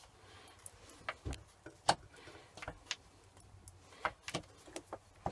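Scattered light clicks and knocks, about a dozen, from parts of a Myford Super 7 lathe's headstock gearing being handled and turned by hand; the loudest knock comes about two seconds in.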